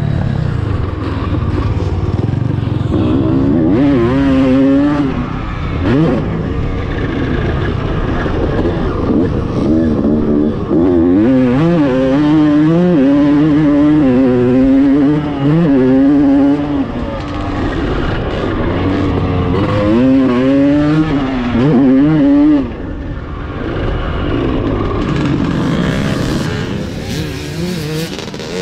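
Honda CR250 two-stroke motocross engine revving hard under load, its pitch climbing and dropping over and over with throttle and gear changes. It is somewhat quieter in the last few seconds.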